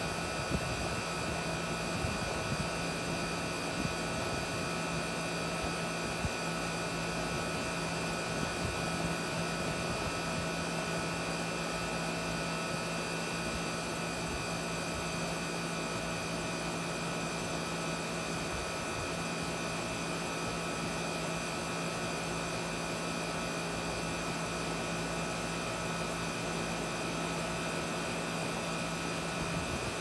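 Outdoor central air-conditioner condensing unit running: a steady hum with several constant tones over the rush of air from its top fan.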